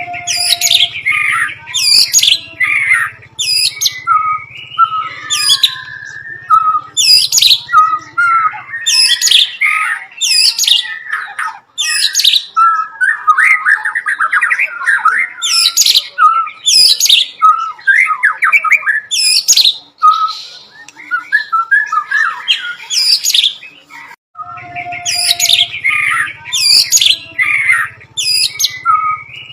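White-rumped shama (murai batu) singing loudly and continuously, rapid phrases of sharp descending whistles and chattering notes that include its imitations of the bar-winged prinia (ciblek). A low hum runs under the song for the first nine seconds or so and returns near the end.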